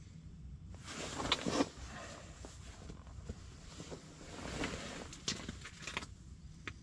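Rustling of a winter jacket and fishing gear being handled, in two stretches with a few light clicks, over a steady low hum.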